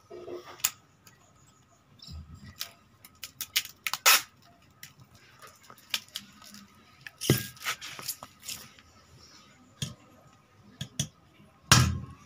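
Brown packing tape being pulled off the roll and pressed around a small wooden target block: a scatter of short crackles and rips.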